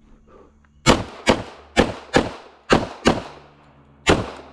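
Pistol shots: seven sharp reports, three quick pairs and then one more, about three seconds of rapid fire.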